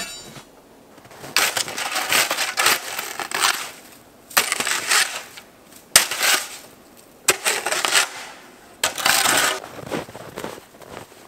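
Snow shovel digging and scraping into packed snow: a series of about five harsh crunching scoops with short pauses between them.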